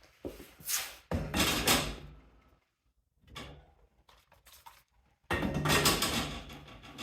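Metal toolbox drawers sliding and shutting with a clunk, twice, about a second in and again near the end, with a quieter knock of tools being handled in between.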